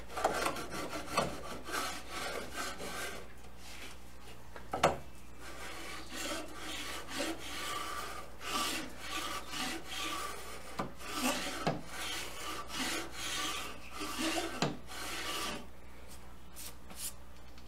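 Small hand plane shaving old paint off the wooden rebate of a door frame in repeated scraping strokes, with one sharp knock about five seconds in.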